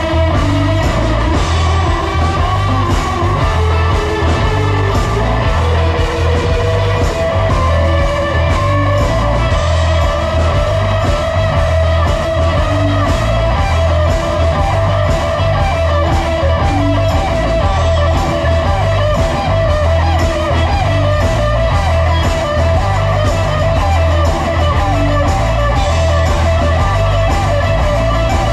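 Live blues-rock band playing: drum kit, a steady repeating bass figure, and a long held lead line that wavers.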